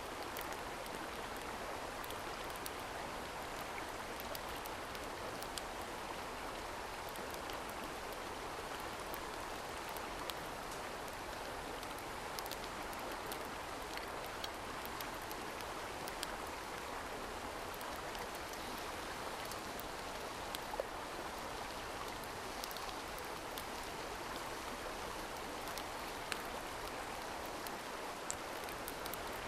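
Mountain stream rushing steadily, with scattered faint sharp ticks over it.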